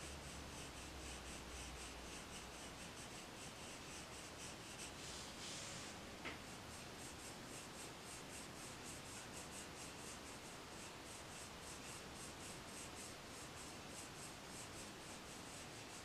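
Prismacolor colored pencil scratching across paper in fast, even back-and-forth strokes, faint throughout, with a single small tap about six seconds in.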